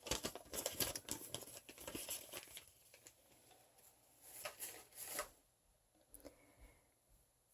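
Toy packaging wrappers rustling and crinkling as they are handled, busiest in the first couple of seconds, with two more short bursts about halfway through before it dies down.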